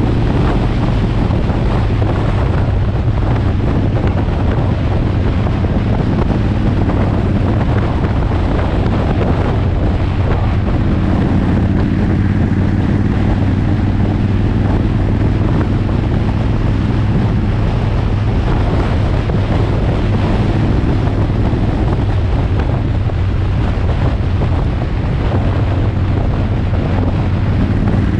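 Motorcycle engine running at a steady cruising speed, heavily mixed with wind buffeting on the microphone.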